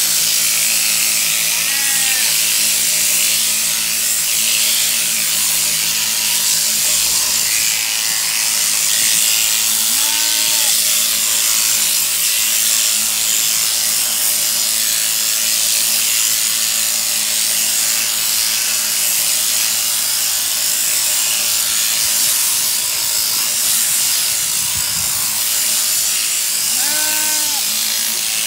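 Mechanical sheep-shearing handpiece on a jointed drive arm, running as its comb and cutter clip through a sheep's fleece: a steady, high buzz.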